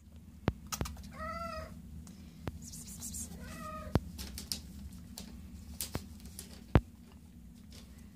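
Domestic cat meowing twice, short calls that rise and fall, about a second in and again about three and a half seconds in. Sharp clicks and taps come at intervals, the loudest near the end, over a steady low hum.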